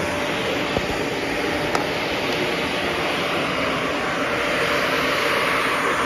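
Shark Navigator Anti-Allergen upright vacuum cleaner running steadily while it is pushed over carpet, with two light clicks about a second in and near two seconds.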